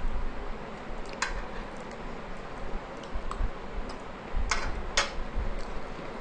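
Eating sounds with a metal spoon clicking against a glass curry bowl: three sharp clicks, about a second in and then two more half a second apart near the end.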